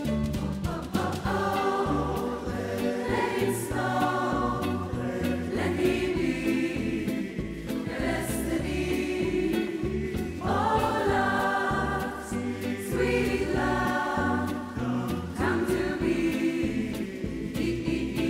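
Mixed SATB choir singing a slow song in parts, with a small band accompanying underneath.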